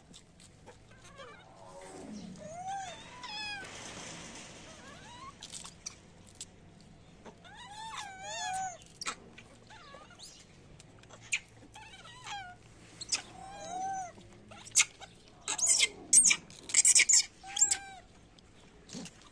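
Macaques calling: a series of short coo-like calls, each rising then falling in pitch, repeated irregularly, with a cluster of sharp high chirps about three-quarters of the way through.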